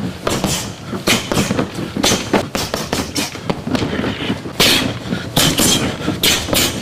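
A rapid flurry of punches striking a heavy punching bag: sharp impacts about three or four a second, one after another.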